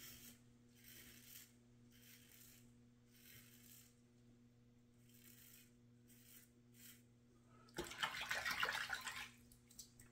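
Gem G-Bar single-edge safety razor scraping through lathered stubble on the neck in short strokes, about one a second, on an against-the-grain pass. Near the end comes a louder scratchy burst lasting about a second and a half.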